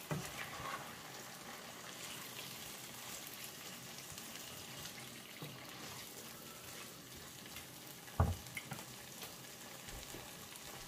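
Tomato and onion stew base frying gently in a nonstick frying pan, a faint steady sizzle while a wooden spoon stirs it. A single knock about eight seconds in, as the spoon is set down against the pan.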